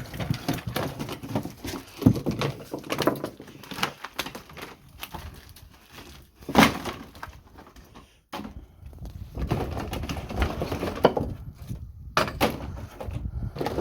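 Wooden shed boards being pried and pulled apart: irregular scraping, creaking and knocks of wood, with a sharp crack or bang about six and a half seconds in.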